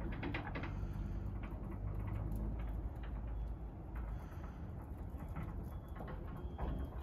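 Automatic cantilever sliding gate running under its electric drive motor: a steady low hum with light clicks and rattles as the steel gate rolls on its carriage.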